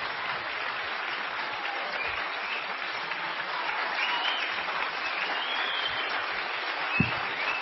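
Audience applauding steadily, with a single thump near the end.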